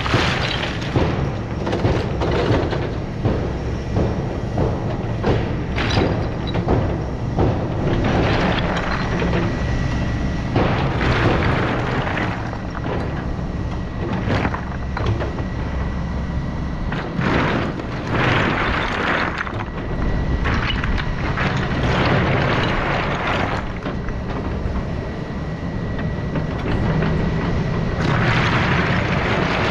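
Excavator engine running steadily under load, with repeated clattering and heavy thuds as its bucket works rock and soil.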